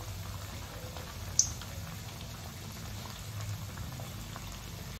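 Besan vadas deep-frying in hot oil in a kadai on a medium flame: the oil bubbles and sizzles steadily, with fine scattered crackles. One sharp click comes about a second and a half in.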